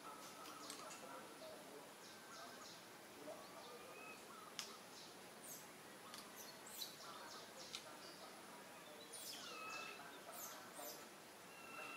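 Faint outdoor ambience with birds chirping: scattered short high chirps and a few brief whistled notes over a low hiss.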